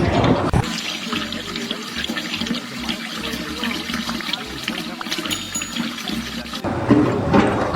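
Water rushing or splashing as a steady noisy hiss for about six seconds, ending abruptly near the end when louder sound cuts in.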